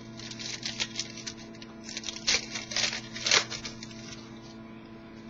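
Trading cards being slid and shuffled by hand: a run of quick papery flicks and scrapes, busiest from about two to three and a half seconds in.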